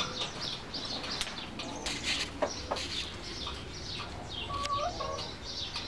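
Hens clucking and calling in a henhouse, with many quick high chirps throughout and one drawn-out call near the end.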